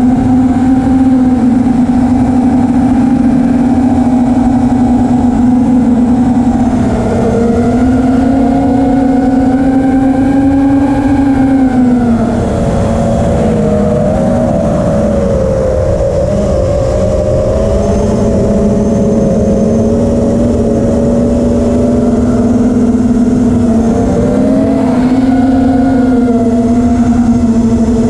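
Racing quadcopter's brushless motors and 5-inch propellers whining in flight, the pitch shifting with throttle and dipping about twelve seconds in, with wind rushing over the microphone.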